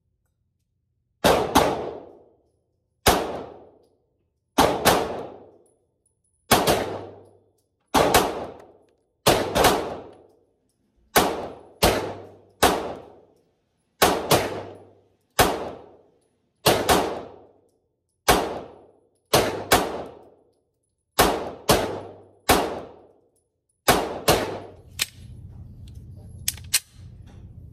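A Canik TP9 Elite SC 9mm subcompact pistol firing a long string of about two dozen shots, one every one to one and a half seconds, some as quick pairs; each report rings off as it fades. Near the end a steady low rumble comes in under the shots.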